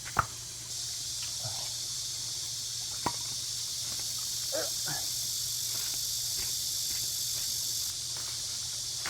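A steady high-pitched insect drone sets in shortly after the start and eases off near the end. Two sharp knocks come through, one right at the start and a weaker one about three seconds in.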